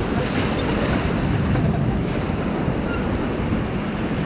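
Steady rush of whitewater around a raft on a fast mountain river, with wind buffeting the microphone.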